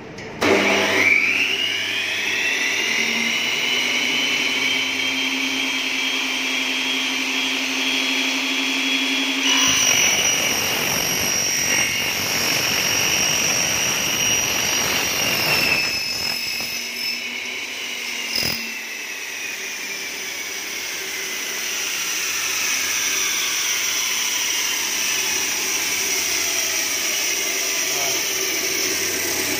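Two-headed aluminium cutting saw built from Hitachi 380 heads: the blade motors start with a rising whine. About ten seconds in, the blades cut through aluminium profile for several seconds with a rough, noisy grinding. After a click the motors wind down with a slowly falling whine.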